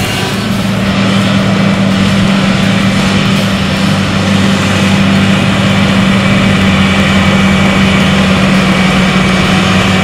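John Deere 8370R tractor's 9.0-litre six-cylinder twin-turbo diesel running steadily and loud under the load of ploughing, growing a little louder about a second in.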